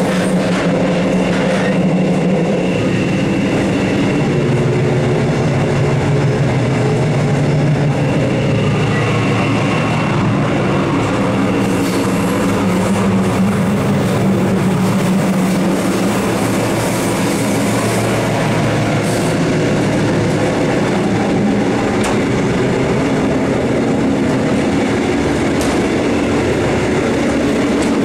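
RBDe 566 electric railcar under way, heard from inside its machine room: a steady hum of the traction equipment, with low tones that drift in pitch, over running noise of the wheels on the rails. A few sharp knocks come from the wheels over rail joints.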